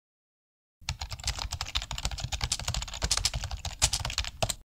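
Computer keyboard typing sound effect for an animated search-bar intro: a rapid run of key clicks that starts about a second in and cuts off suddenly near the end.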